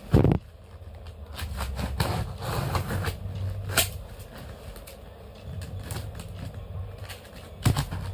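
Cardboard box and its wrapping being handled and opened: scraping and rustling with many short knocks and clicks. There is a loud thump just after the start, a sharp click about four seconds in and another knock near the end, over a steady low hum.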